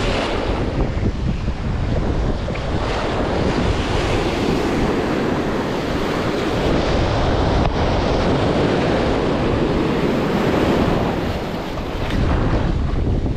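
Ocean surf breaking and washing up around the feet in the shallows, with wind buffeting the microphone.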